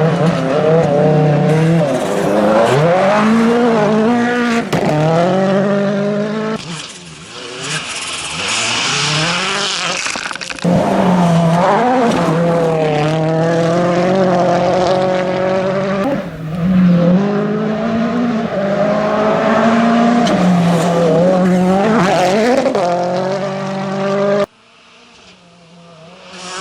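WRC 2 rally car engine driven hard, its pitch climbing and dropping again and again through gear changes, with tyre noise. Near the end the sound cuts off abruptly, and another car's engine is heard building up as it approaches.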